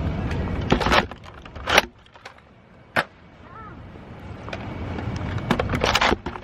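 Wind buffeting the microphone for the first two seconds, with short rustling bursts, a single sharp click about three seconds in, and more rustling near the end.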